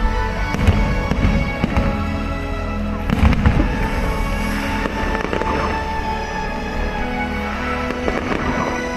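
Fireworks bursting and crackling in repeated bangs, with a tighter cluster of explosions about three seconds in, over music with steady held tones playing throughout.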